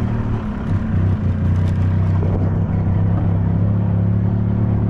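Golf cart running steadily while being driven, a constant low hum.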